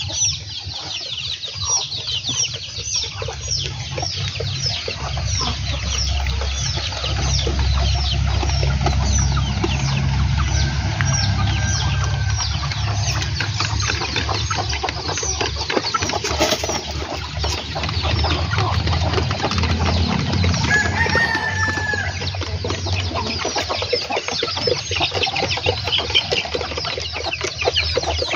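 Flock of kampung (Indonesian native) chickens clucking, with rapid high-pitched chirping going on constantly and a low rumble underneath. A longer call stands out a bit past two-thirds of the way in.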